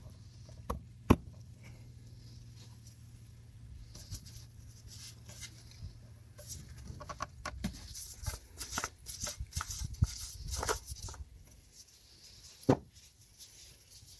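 Handling sounds while engine oil is topped up: scattered clicks, taps and light rustling from the oil bottle and the filler area, with a sharp knock about a second in and another near the end. A low steady hum runs under the first few seconds.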